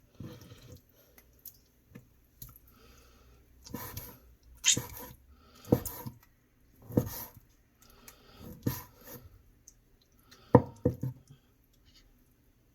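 Irregular knife knocks on a cutting board and clatter of handling food, as blanched abalone is roughly cut and put into a bowl; about six sharp knocks a second or so apart, with soft rustling between them.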